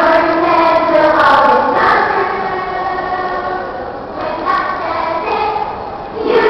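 A group of children singing together, with long held notes.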